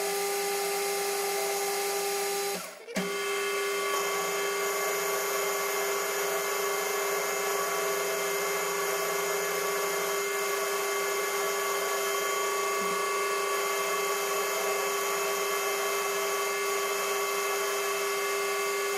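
Metal lathe running steadily with a constant high hum while a parting tool cuts the small cam lobe off the bar stock. The sound drops out briefly about three seconds in.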